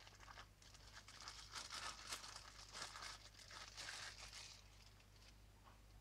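Thin plastic wrapping crinkling and rustling as it is pulled off a stainless steel cocktail shaker. The sound is faint and dies down about five seconds in.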